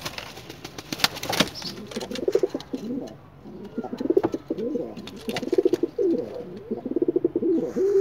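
Bukhara pigeon cooing: a run of low, rolling coos repeated from about two seconds in.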